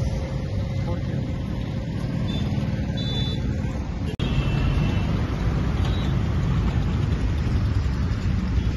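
Road traffic running past, a steady low rumble that gets a little louder about four seconds in.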